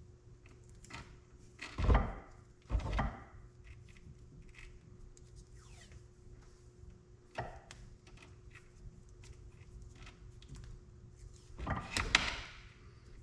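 Electrical tape being wrapped around a cable, with handling noises: two knocks early, one smaller knock in the middle, and a louder rasping cluster near the end. A faint steady hum runs underneath.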